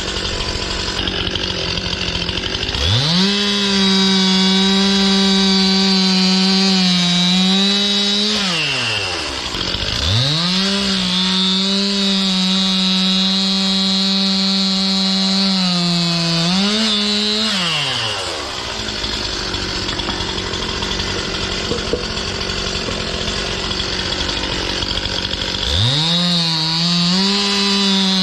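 Stihl MS 261 C two-stroke chainsaw cutting sugar maple firewood. It revs from idle to full throttle three times, holding each cut for several seconds at a steady high pitch and dropping back to idle between cuts.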